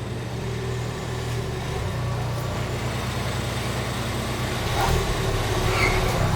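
Car engine running steadily, a low even drone throughout.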